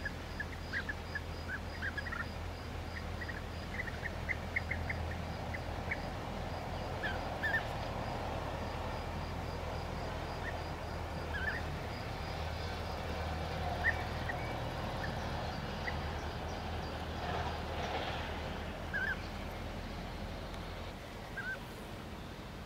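European bee-eaters giving short, scattered calls, over a steady low rumble. A faint fast high ticking, about five a second, runs behind them for most of the time and stops a few seconds before the end.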